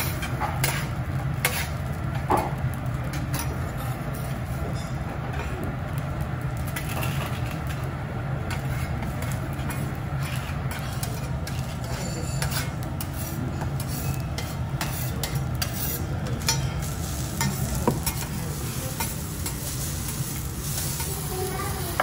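Rice sizzling on a hot teppanyaki steel griddle while a metal spatula scrapes and taps against the plate, giving short sharp clicks scattered throughout over a steady low hum.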